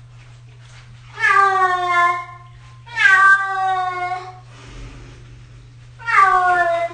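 Domestic cat meowing loudly in protest at being bathed: three long, drawn-out meows, each sliding slightly down in pitch.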